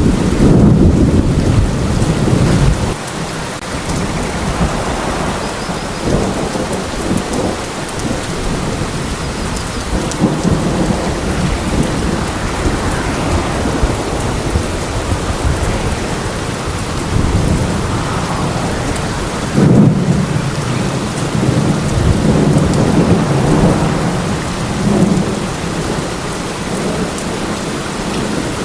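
Steady heavy rain with rolling thunder. The thunder rumbles at the start, eases off, then swells again about twenty seconds in.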